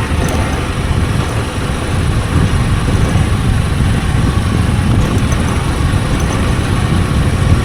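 Hero Super Splendor's 125 cc single-cylinder engine running steadily while riding, heard as a dense, steady low rumble mixed with road and wind noise on the action camera's built-in microphone.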